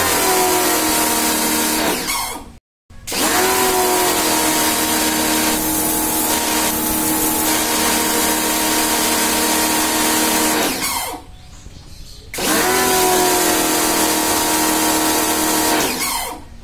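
Small electric pressure washer's motor and pump running while the lance sprays water onto concrete, with a hiss from the spray. Its pitch dips briefly as it comes under load each time it starts. It stops about eleven seconds in, starts again about a second and a half later, and stops again near the end: the automatic pressure switch is shutting the motor off when the trigger is released, now working as it should.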